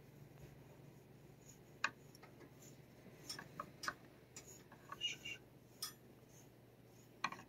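Faint, scattered clicks and light taps of a metal-handled stroking stick with a plastic tip knocking against the cage bars and shelf as it strokes a cat, over a low steady hum.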